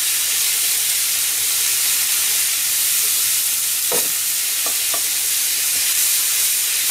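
Minced meat sizzling as it fries and browns in a frying pan, a steady hiss, with a few short knocks and scrapes of a wooden spatula against the pan about four to five seconds in as the meat is stirred.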